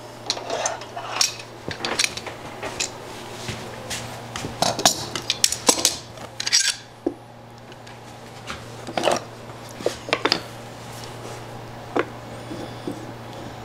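Metal bar clamps clinking and clattering as they are handled and set, with the sliding jaw clicking along the bar as it is tightened down onto a wooden pad. Irregular sharp clicks in clusters, thicker in the first half and sparser toward the end.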